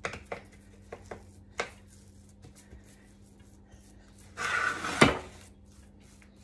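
Back of a metal spoon pressing and scraping a sticky banana-and-oat mixture flat in a baking-paper-lined tray: scattered soft taps, then a louder scrape about four and a half seconds in that ends in a sharp knock. A faint steady low hum runs underneath.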